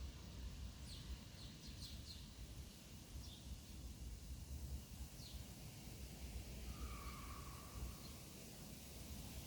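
Faint birdsong: a few quick, high chirps in the first half and one short whistled note later, over a steady low outdoor rumble.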